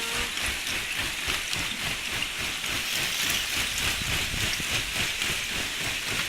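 Lake ice shove: sheets of lake ice pushing ashore, grinding and breaking up into a steady, dense crackling and tinkling of shattering ice plates.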